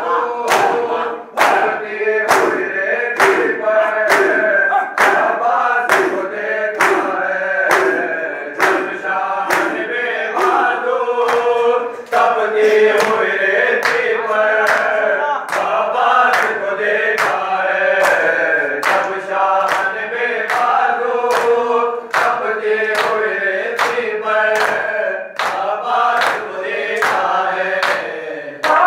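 A group of men chanting a mourning noha in unison while beating their chests with open hands in time, sharp slaps about three every two seconds, as in Shia matam.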